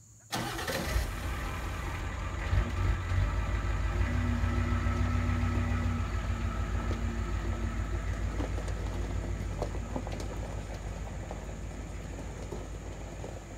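Dump truck engine comes in suddenly and runs with a low, evenly pulsing rumble, then fades steadily from about halfway as the truck drives off.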